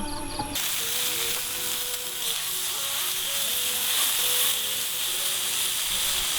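Food sizzling and frying in a hot pan: a steady hiss that begins about half a second in.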